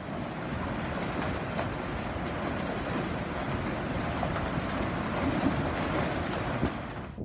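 Water rushing and churning through a concrete channel: a steady rush of noise that cuts off at the end.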